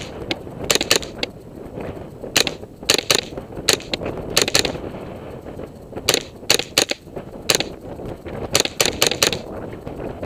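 Semi-automatic AR-15 with a CMMG .22 LR conversion kit firing a string of about twenty sharp shots, some single and some in quick runs of two to four.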